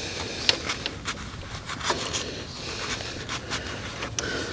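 Scattered light clicks and scrapes with some rustling: hands handling small parts and cleaning up around the mower's oil filter mount.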